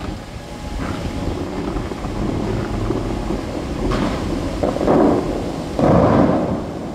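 Bellagio fountain jets firing over a steady rush and rumble of falling water, with two loud bursts of rushing spray about five and six seconds in as tall columns of water shoot up.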